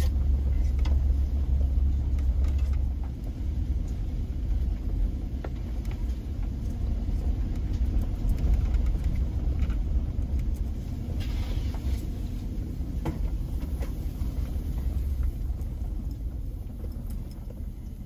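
A truck drives slowly along a dirt woods road, heard from inside the cab. Its engine and tyres make a steady low rumble, with a few short knocks and rattles from the rough road.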